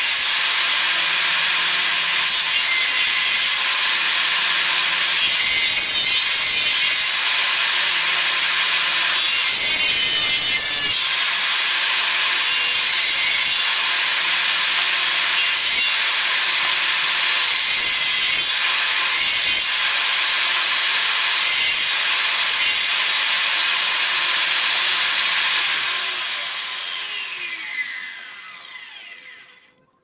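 A circular saw mounted under a homemade wooden saw table, running with a steady high whine as small blocks of wood are fed through it again and again; the sound swells each time the blade cuts into the wood. Near the end the saw is switched off and winds down, its whine falling in pitch until it stops.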